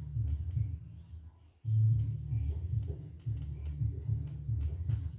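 Marker writing on a whiteboard: irregular strokes, small taps and scratches against the board, with a dull low knocking as the board takes each stroke. It drops out briefly about a second and a half in.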